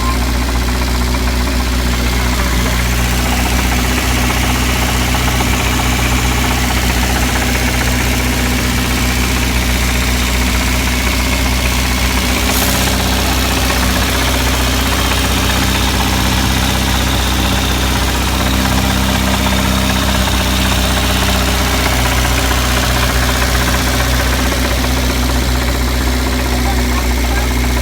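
Burton-built 1660 cc Ford crossflow four-cylinder engine idling steadily with a knock in it. One brief click near the middle.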